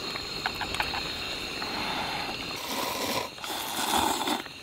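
A person slurping instant ramen noodles and broth from a bowl, two long slurps in the second half, with a few light utensil clicks before them.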